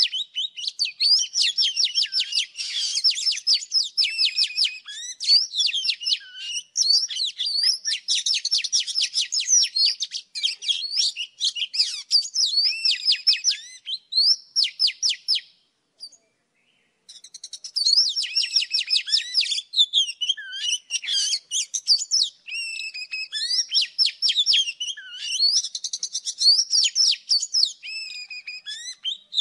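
Oriental magpie-robin singing: a continuous run of rapid, chattering trills mixed with varied whistled notes and slurs. The song breaks off for about a second midway, then resumes.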